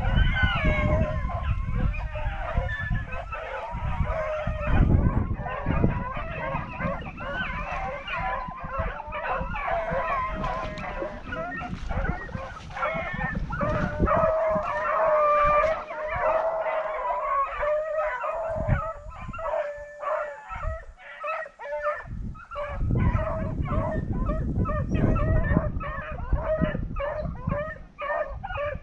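A pack of rabbit-hunting beagles baying together in full cry, many voices overlapping without a break: the hounds are running a rabbit on the scent.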